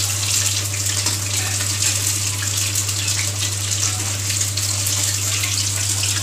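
Batter-coated elephant foot yam slices deep-frying in hot oil, a steady sizzle full of small crackles, while the pieces are turned over with a metal slotted spoon.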